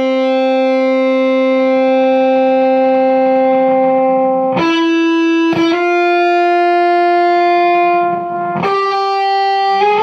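Electric guitar through a Ghost Effects Sounds of Today Mark 1 Tone Bender fuzz pedal, guitar volume at full: long sustained fuzzed single notes, the first held for over four seconds, then higher notes taken about halfway and again near the end.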